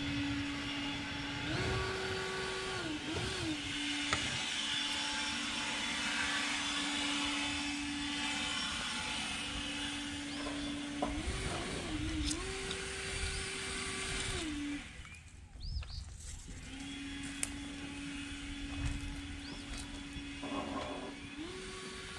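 A steady motor-like drone holding one pitch, stepping up briefly and back down three times, and cutting out for a couple of seconds about fifteen seconds in.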